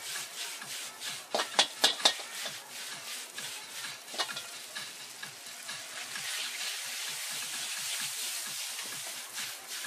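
Noodles and vegetables sizzling in a wok over a gas burner as they are tossed and stirred with a metal ladle. Sharp clacks of the ladle against the wok come in a quick run about a second and a half in and once more around four seconds, then the sizzle grows steadier and a little louder.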